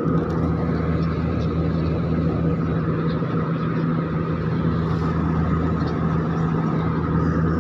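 Steady cabin noise of an airliner in cruise flight: an even drone of engine hum and rushing air that does not change.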